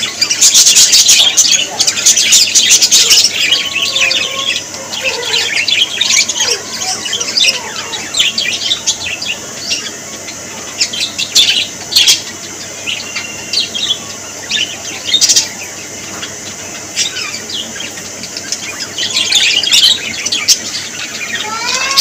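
A flock of budgerigars chattering, a busy jumble of short high-pitched chirps and warbles. It is thickest for the first few seconds and again near the end, thinner in between.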